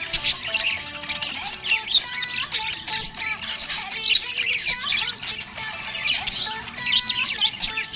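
Small pet parrots chirping in a rapid, dense stream of short calls, over background music with held notes.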